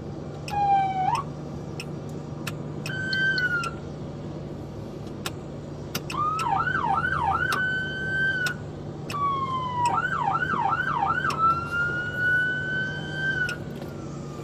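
Police car siren sounded in short bursts: brief whoops, then two runs of rapid yelping sweeps, each running into a longer wail, with sharp clicks between bursts. A steady low hum runs underneath.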